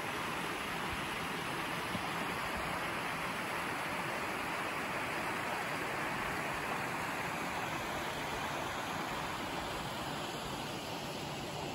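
Mountain stream rushing steadily through a snowy gorge, a little softer near the end.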